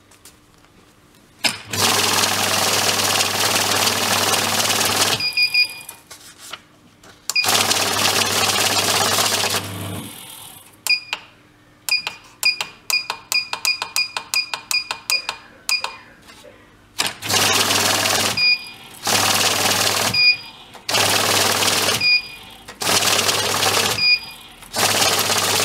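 Electric bill counter running as it feeds and counts a stack of banknotes, in two long runs. Then its control-panel buttons are pressed, a short beep with many of the presses, and the machine makes five short counting runs of about a second each, most ending in a beep.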